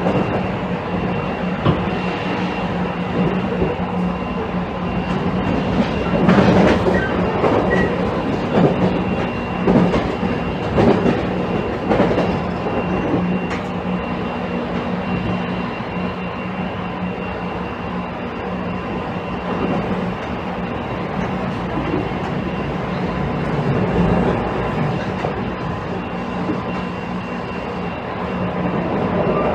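Inside a JR Kyushu 813 series electric train's motor car, Toshiba GTO-VVVF controlled, running at a steady speed: a steady hum holding its pitch. The wheels clack over rail joints, with a run of louder clacks from about 6 to 13 seconds in.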